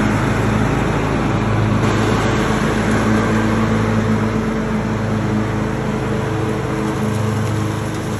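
John Deere X320 lawn tractor's engine running steadily while mowing grass, growing slightly fainter near the end as the tractor moves away.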